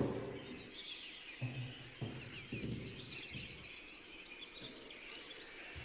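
Faint background with small bird chirps and a few soft low thuds.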